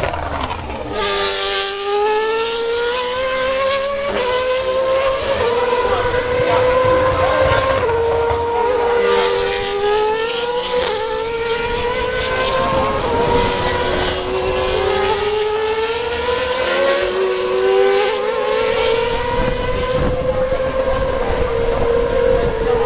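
Racing car engine running at high revs for the whole stretch, its pitch rising and falling again and again with sudden steps.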